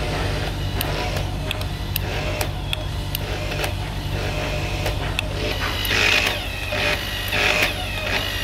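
Electric hydraulic pump of a Hytorc torque wrench running with a steady low hum, with sharp clicks from the wrench. From about six seconds in, the pump surges about every second and a half as the wrench cycles on the nut.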